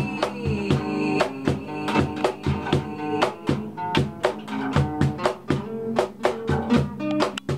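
Acoustic guitars strumming chords over a cajón beat, with frequent sharp hand strikes on the box.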